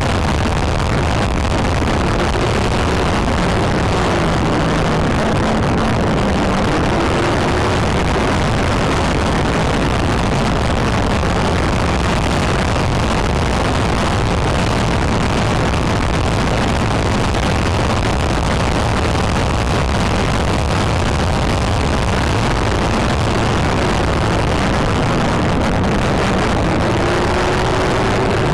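Road, wind and engine noise inside a patrol SUV driving at speed: a loud, steady rush. A faint tone rises in pitch a few times.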